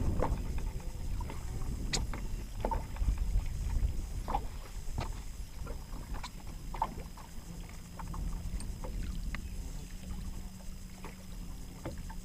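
Wind rumble on the microphone and water moving around a fishing boat, with scattered light knocks and clicks as the anglers move in the boat. A faint low hum comes in about eight seconds in.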